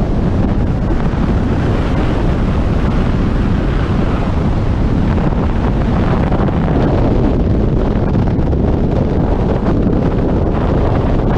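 Strong wind buffeting the camera microphone in a loud, steady rush, as heard during a skydive.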